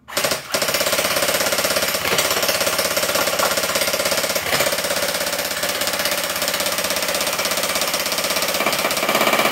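M4-style gel blaster rifle firing on full auto: one long, unbroken burst of rapid mechanical shots. It starts a moment in with a brief stutter.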